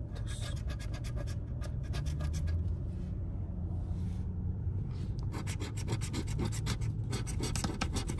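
A coin scraping the scratch-off coating off a lottery ticket in quick, rapid strokes, easing off briefly midway and then resuming. A low steady rumble sits underneath.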